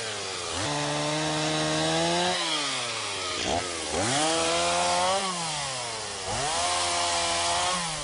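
Small two-stroke power-tool engine, used for clearing forest fuel, revving up three times, holding high revs about a second and a half each time, then dropping back toward idle.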